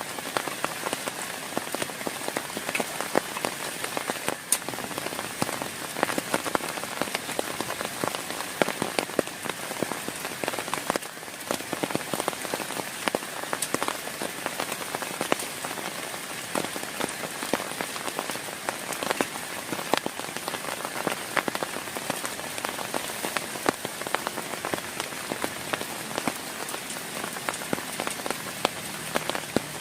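Heavy rain falling steadily, with many sharp individual drop hits on a nearby surface.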